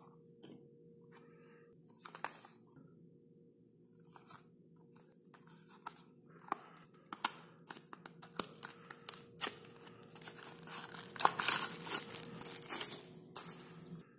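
Hands opening a small cardboard box and unwrapping the paper packing inside: scattered clicks, taps and paper rustling, busiest in the last few seconds.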